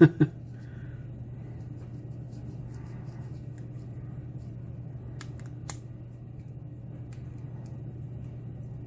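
A few faint, short metallic clicks and scrapes as a shim is worked around a pin-tumbler lock's plug to free it, over a steady low hum.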